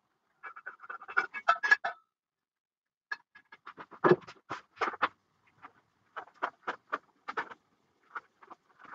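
Rustling and clicking of packaging and small telescope-mount parts being handled on a table, in several short bursts with pauses between.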